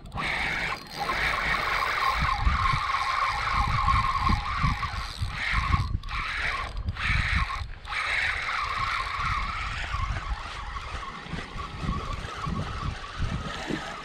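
Spinning reel (Shimano Sahara 2500) being cranked to bring in a hooked fish: a steady gear whir with brief breaks about six, seven and eight seconds in, over a low rumble.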